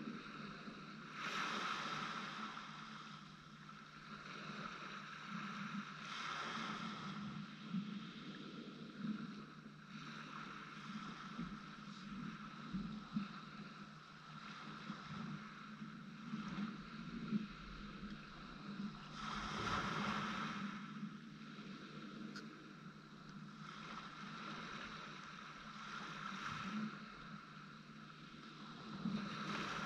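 Small waves washing onto the beach, the wash swelling and fading every several seconds.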